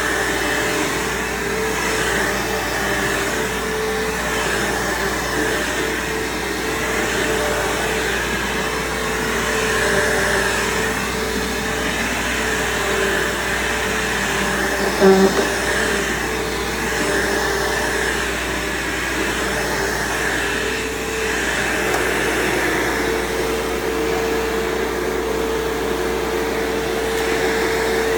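Bissell PowerForce bagged upright vacuum cleaner running steadily while being pushed over the floor, its motor whine steady and the suction hiss rising and falling with each stroke. A brief knock sounds about halfway through.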